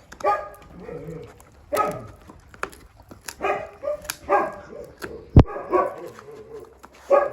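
Wolves giving short whining yelps, about seven brief pitched calls, with a sharp knock about five and a half seconds in.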